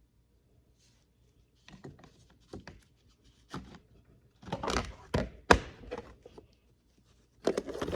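Handling noise from small tools and their cases: a scattered run of knocks and clicks as they are picked up and set down, the loudest about five and a half seconds in.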